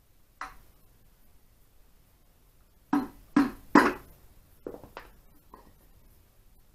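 A soft-faced mallet tapping the alloy crankcase half of an Ariel single-cylinder engine to seat it. There is one knock just after the start, then three firm blows less than half a second apart about three seconds in, each ringing briefly in the casting, then a few lighter taps.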